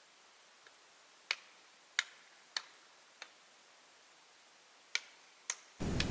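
Sharp, isolated clicks or pops at irregular intervals, about six in five seconds, over a quiet background. Near the end a loud, steady rushing noise cuts in suddenly.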